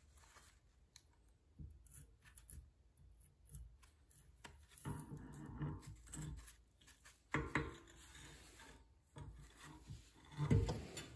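Rusty Dana 30 front axle shaft being slid out of the axle tube: metal scraping and rubbing, with a few knocks, the loudest near the end.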